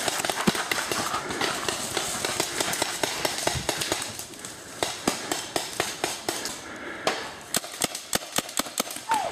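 Rustling and crunching of dry leaves and brush underfoot while a player moves through the woods. In the second half comes an uneven string of sharp pops from paintball markers, a few a second, coming faster near the end.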